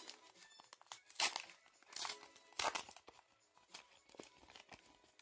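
A small Pokémon booster pack wrapper from a McDonald's promo pack being torn open and crinkled by hand, in a series of short crackling bursts. The loudest comes about a second in.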